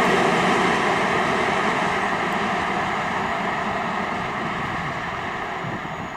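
Freight train wagons rolling past on the track, a dense rumbling noise with a faint steady whine that fades gradually as the train moves away.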